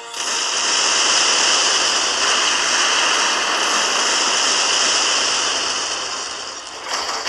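Explosion sound effect for the battleship being hit: a loud, continuous rushing noise that starts abruptly, eases off after about six seconds, then flares again briefly near the end.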